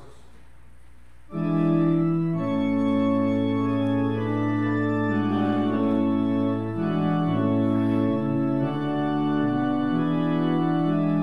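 Church organ starts playing about a second in, with slow held chords, typical of a hymn introduction.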